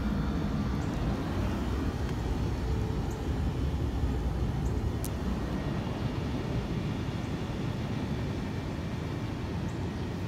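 Steady low outdoor rumble of background noise, with no distinct event standing out.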